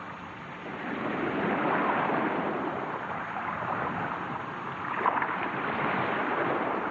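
Sea waves washing ashore, a steady rushing that swells twice, with a brief splash-like spike about five seconds in.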